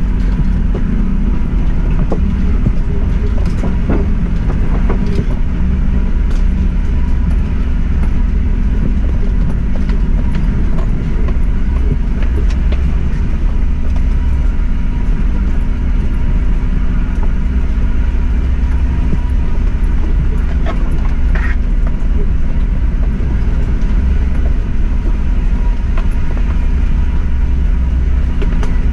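Suzuki Jimny running under steady load as it crawls along a rough track: a continuous low rumble with scattered knocks and clicks throughout.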